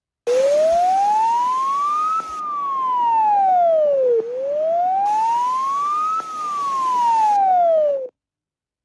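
Emergency alert siren wailing: its pitch rises for about two seconds and falls for two, twice over, with a hiss behind it. It cuts off abruptly near the end.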